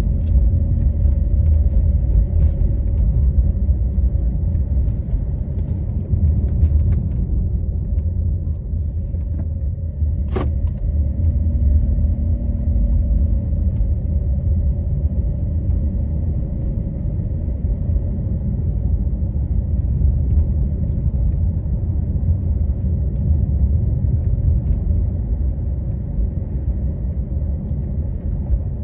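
Car driving along the road: a steady low rumble of engine and road noise, with a single sharp click about ten seconds in.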